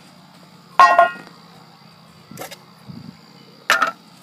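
Two sharp metallic clanks, each ringing briefly, about three seconds apart: hand tools and test gear being handled.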